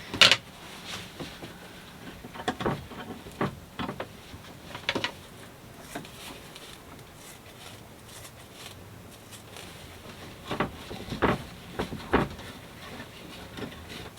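Foam strips being pushed into and fitted along the slots of a sailboat's hatch boards: scattered knocks, clicks and rubbing, coming in small clusters.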